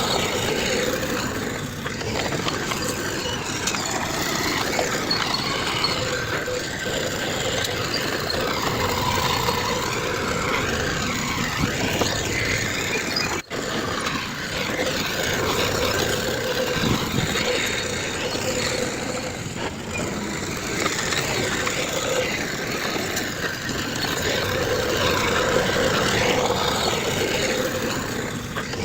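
Diesel engines of heavy earthmoving machinery running steadily, with a brief break about halfway through.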